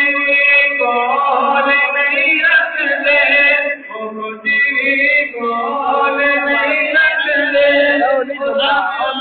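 A man's voice chanting a Punjabi devotional naat into a microphone, with long, bending held notes and a short break for breath about four seconds in.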